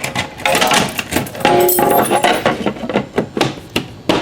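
JBG12LX manual fire alarm pull station being reset one-handed with its key: a rapid run of clicks and knocks from the handle and latch, with keys clinking and brief metallic rings about halfway through.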